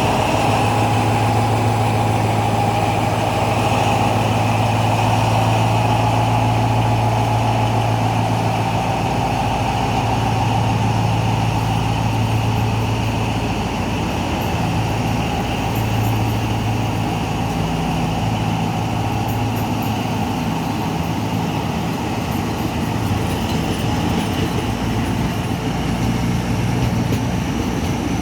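Diesel locomotive engine running steadily with a continuous low hum, a train standing ready to pull out of the station.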